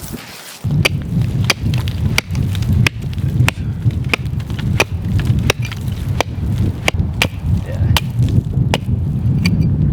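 Rapid, evenly paced chopping strikes on wood, about one and a half a second, over a steady low rumble of wind on the microphone.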